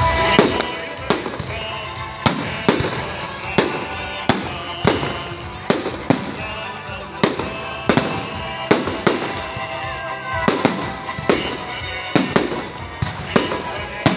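Fireworks salute going off: a rapid series of sharp bangs, roughly one to two a second, with music playing underneath.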